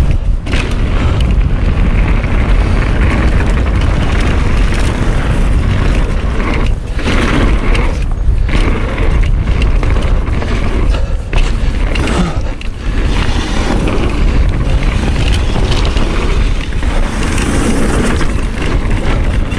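Wind buffeting the camera microphone and tyres running over a dirt trail as a mountain bike descends at speed, a loud, continuous rumble with a few brief dips.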